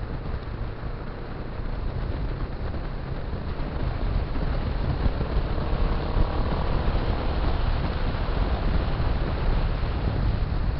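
Motorcycle riding at road speed: the engine runs under a heavy low rumble of wind on the microphone. It gets louder over the first few seconds.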